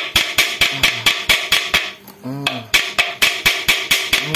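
Background music with a fast, even, clicking percussion beat, about six or seven strokes a second, pausing briefly about two seconds in.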